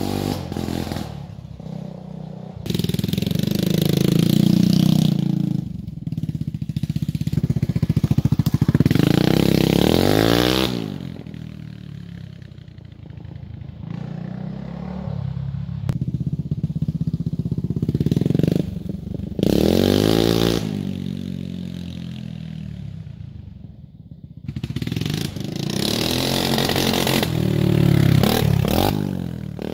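1980 Honda XL250S single-cylinder four-stroke engine running with an open exhaust pipe and no muffler, revving up and down. It grows louder and fainter several times as the bike comes near and moves away, and is loudest as it passes close near the end.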